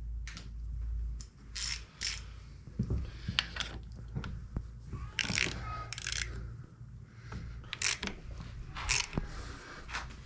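Hand tools working a two-bolt harmonic balancer puller on an engine crankshaft: irregular metallic clicks, ratchet strokes and scrapes every second or so, over a low hum.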